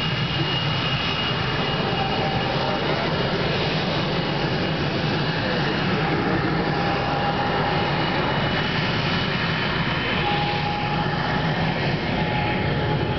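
CF-18 Hornet's twin General Electric F404 turbofans running at taxi power: a steady jet rumble with a high whine held over it.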